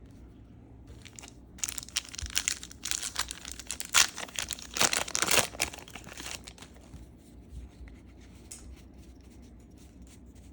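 A trading-card pack's wrapper being torn open and crinkled: a run of rough tearing and crackling for about five seconds, then a few faint ticks.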